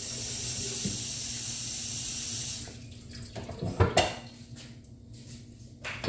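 Kitchen tap running water into a sink, shut off abruptly about two and a half seconds in, followed by a few knocks.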